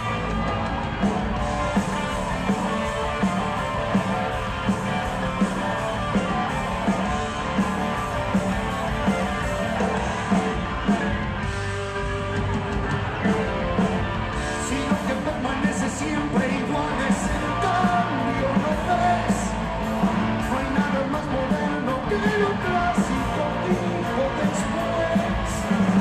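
Live rock band playing, with distorted electric guitars over drums and a singer's voice.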